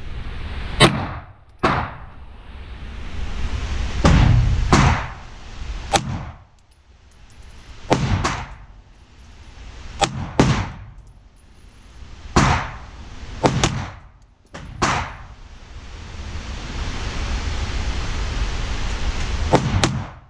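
CZ P10 pistol firing at an indoor range: about a dozen sharp shots at irregular intervals, each ringing briefly off the walls, with a rushing hiss between some of them.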